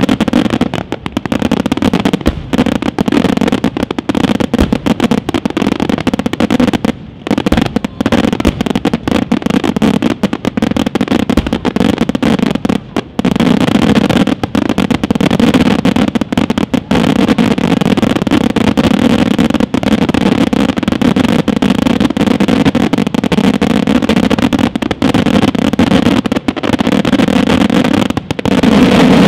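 Aerial fireworks shells bursting in a dense, near-continuous barrage of loud bangs and crackles, with brief lulls about seven and thirteen seconds in.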